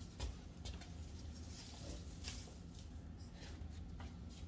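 A scatter of faint, light taps and rustles over a low steady room hum.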